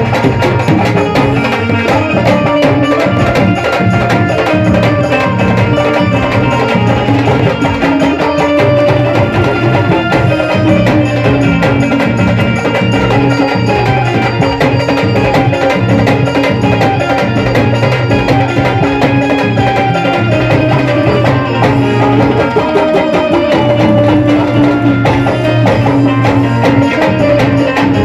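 Live Haryanvi devotional folk music, a bhajan band with fast, steady hand-drum percussion under a melody line.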